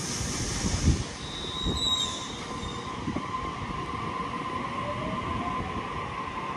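Sydney Trains Waratah double-deck electric train pulling away and picking up speed, its traction motors whining, with one tone rising in pitch near the end. A brief high wheel squeal comes about a second and a half in, and a few low thumps come in the first three seconds.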